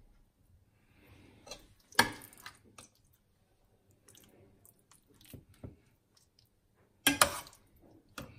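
Wet, squishy handling of raw chicken breasts stuffed with ricotta and pesto as they are pressed closed, with small scattered clicks, a sharp knock about two seconds in and a louder cluster of knocks near the end.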